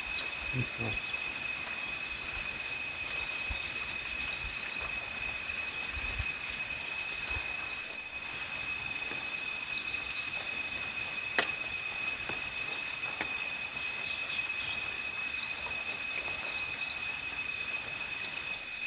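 Chorus of night insects: several shrill tones held steady, with a fast pulsing trill above them.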